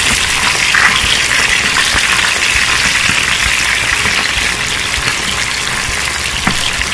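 Chicken pieces deep-frying in hot oil, a loud, steady sizzle with small crackles as moisture cooks out of the skin.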